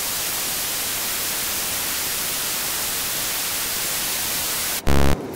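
Steady, loud television-static hiss (a white-noise sound effect). Near the end it is cut off by a brief, loud buzzing tone.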